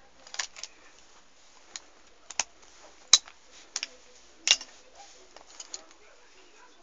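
Sharp, irregular plastic clicks and clacks from an M4A1 airsoft rifle, about a dozen spread out, the loudest about three seconds in.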